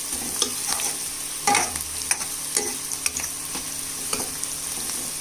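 Chopped vegetables sizzling in a hot pan with a steady hiss, stirred with a utensil that clicks and scrapes against the pan irregularly, loudest about a second and a half in.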